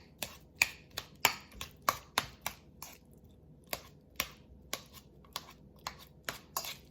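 Metal spoon clicking against a bowl while mashing and cutting avocado: quick, irregular sharp clicks, three or four a second, with a pause of about a second midway.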